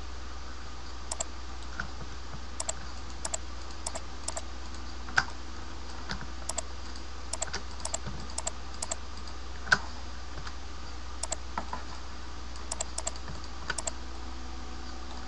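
Computer keyboard keys clicking irregularly, single presses, pairs and short runs, as editing shortcuts are typed, with two sharper clicks about five and ten seconds in. A steady low hum runs underneath.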